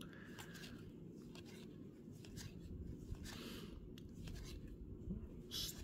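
Topps baseball cards being flipped through by hand: faint light clicks and the soft slide of card stock as cards are moved from the front of the stack to the back, over a low steady hum.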